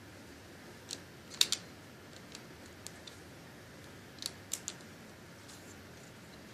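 Sharp plastic clicks of LEGO bricks being handled and pressed onto a model: one click about a second in, a loud pair about a second and a half in, a few fainter ticks, then another quick cluster of three just past four seconds.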